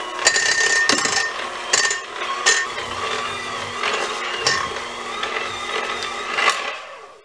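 Electric hand mixer running on its lowest setting, its beaters tearing through hot cooked chicken breasts and knocking against the bowl every so often, shredding the meat. The motor stops near the end.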